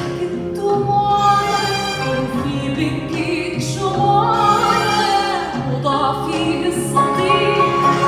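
A woman singing an Arabic song live with a string orchestra, the voice and strings holding long notes, some with vibrato.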